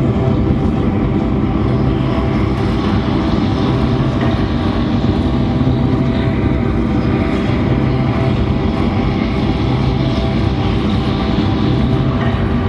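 Experimental drone music for the dance performance: a dense, unchanging wash of held tones over a deep hum, steady and loud throughout.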